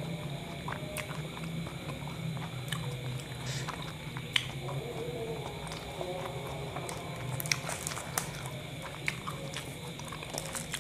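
A man chewing a mouthful of kebab close to a clip-on microphone, with small wet mouth clicks. Near the end come sharper crinkling clicks as the kebab's paper wrapper is handled.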